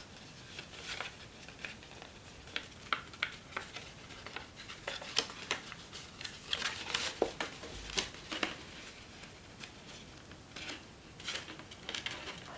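Stiff elephant-hide paper crackling and rustling in the hands as its pre-creased folds are pushed together, with many short, irregular crisp snaps.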